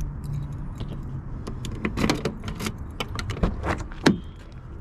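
Handling noises on a vehicle: a string of sharp clicks and knocks with some metallic jingling, the loudest knock about four seconds in. A low steady hum sits under the first second or so and then fades.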